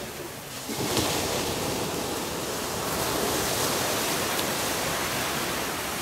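Sea surf washing onto a sandy beach: a steady rushing noise that swells up about a second in and then holds.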